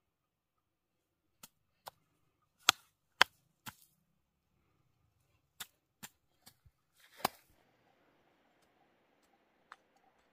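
Short hand hoe chopping into dry, tilled soil to open holes for corn seed: about eight sharp, irregular strikes, the loudest around three seconds in. After about seven seconds the strikes stop and only a faint steady hiss remains.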